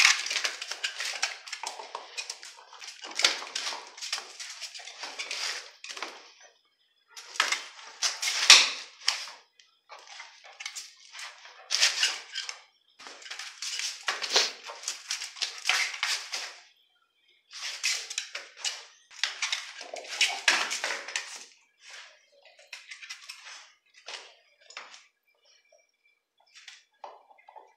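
Dog working at a cow-foot bone on a bed of blankets and cardboard: crackly gnawing, scraping and rustling in bursts of a second or two with short pauses, sparser and fainter near the end.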